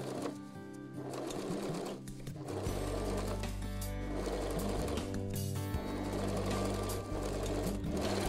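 Pfaff sewing machine running in several short stretches with brief pauses, stitching through cotton fabric, over background music.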